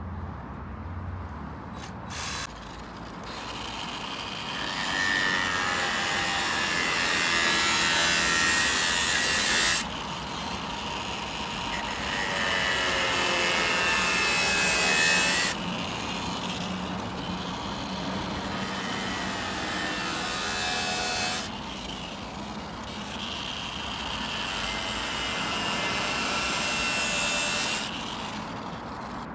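Power saw cutting in four long runs, each several seconds long and ending abruptly, with a whine running through the cutting noise.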